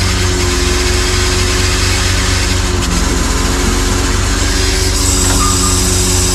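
Truck-mounted loader crane at work: the truck's engine runs steadily to drive the crane's hydraulics, a constant drone of engine tones under a loud, even hiss.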